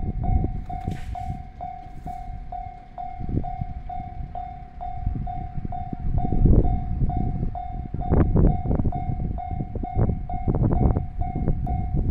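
Railway level crossing alarm ringing steadily, a pitched ding repeating about twice a second, while the approaching train is still far off. An uneven low rumble swells and fades underneath.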